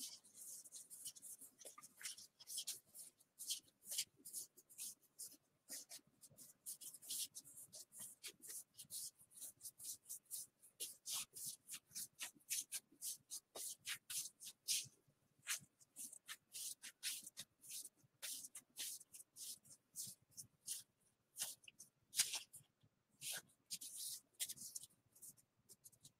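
A stack of baseball trading cards being flipped through by hand, one card after another: a quick run of light paper flicks and slides, several a second.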